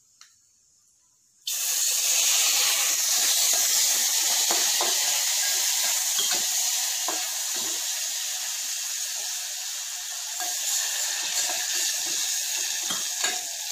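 Water poured into a hot aluminium pot of frying oil, cashews and almonds, hissing and sizzling loudly. It starts suddenly about a second and a half in and slowly eases, with a spoon knocking and scraping the pot as it is stirred.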